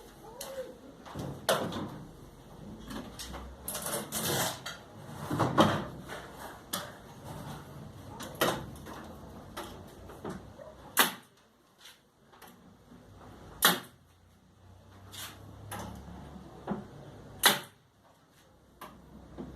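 Sharp single knocks of wood or tools being handled at a workbench, coming every few seconds, with quieter shuffling and scraping in between.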